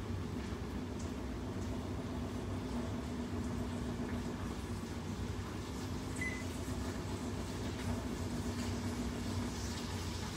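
Steady low hum of a fan motor running, with a brief high beep about six seconds in.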